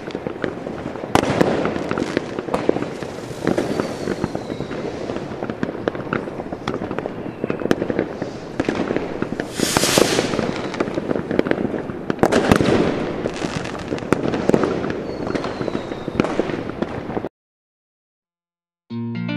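Firecrackers and fireworks going off in a dense crackling din, with many sharp bangs and a couple of faint falling whistles. A louder hissing burst comes about halfway through. The din cuts off suddenly shortly before the end.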